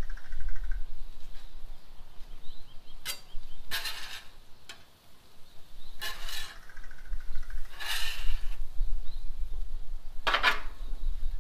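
Metal spatulas scraping across a steel flat-top griddle as a hash of ground beef, potatoes and peas is turned and chopped: several separate scrapes, the loudest near the end, over a low rumble.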